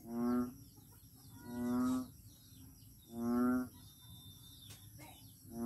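A frog calling: four loud, low, drawn-out croaks, each about half a second long and about a second and a half apart, with birds chirping faintly in the background.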